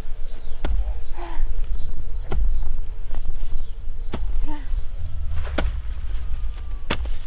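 Hoe blade chopping into dry, grassy soil: several sharp separate strikes at uneven intervals. An insect trills steadily and stops about five seconds in, over a steady low rumble.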